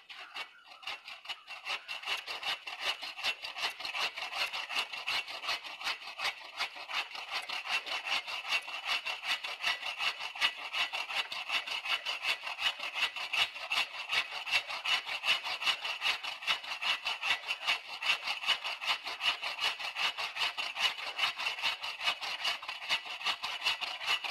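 Agawa Canyon Boreal21 folding bucksaw cutting through a standing tree trunk with quick, even back-and-forth strokes: the back cut just above the felling notch. The strokes start faint and grow louder and steadier over the first two seconds.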